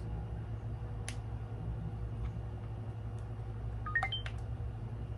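A small digital camera's controls being worked: a button click about a second in, then a quick run of short electronic beeps at different pitches with clicks about four seconds in, over a steady low hum.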